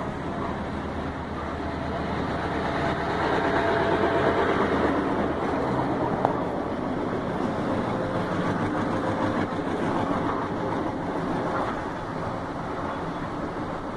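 EMD GP38-2 diesel-electric locomotive's 16-cylinder two-stroke diesel engine running close by, a steady rumble and hiss that swells for a couple of seconds about three seconds in.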